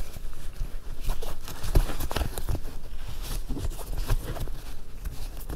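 Gloved hands pressing and pulling glued canvas top fabric tight around a fiberglass quarter-window frame, giving irregular rubbing and handling noise with scattered small taps and knocks against the frame and table.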